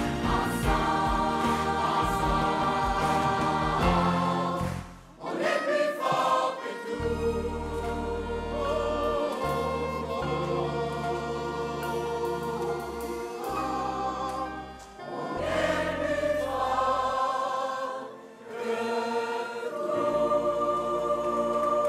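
Large mixed choir of men and women singing in harmony over a low instrumental accompaniment, with two brief breaks between phrases.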